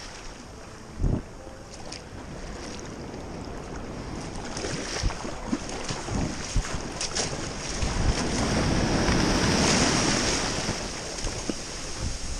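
Paddle strokes splashing and surf washing around a sit-on-top fishing kayak as it is paddled in through the breakers, with wind buffeting the microphone. About eight seconds in, the rush of breaking whitewater swells up loudly around the hull as the kayak rides the broken wave toward the beach.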